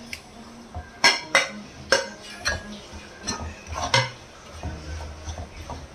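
A steel spoon clinking and knocking against a metal kadai while spice powders are stirred into garlic cooking in oil: a string of sharp, irregular clinks starting about a second in.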